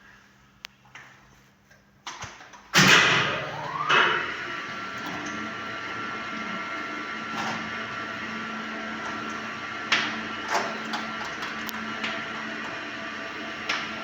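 A machine switches on about three seconds in with a loud start and a whine rising in pitch, then runs steadily with a constant hum and occasional clicks.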